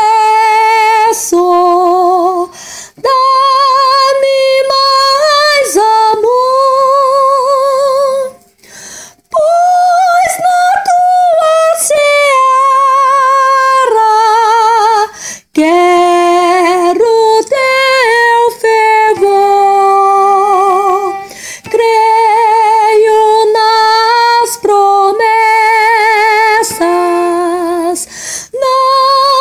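A soprano voice singing the soprano line of a four-part hymn, holding long notes with a wide vibrato and breaking briefly between phrases.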